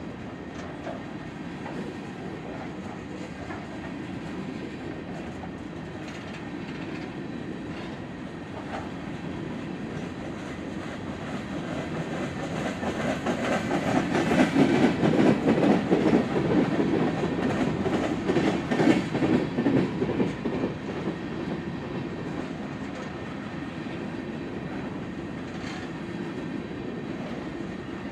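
Coal hopper cars of a freight train rolling past, their steel wheels clicking over rail joints in a steady clatter. It grows louder for several seconds in the middle, then eases back.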